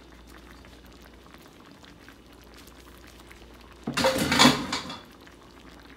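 Marsala cream sauce simmering gently in a skillet around chicken breasts, then a brief loud clatter about four seconds in.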